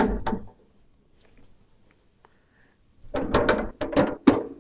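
Drill head of a radial drilling machine pushed by hand along its radial arm, cast-iron parts scraping and clunking. There is a loud clunk at the start, then a quiet stretch, then a run of sharp knocks from about three seconds in.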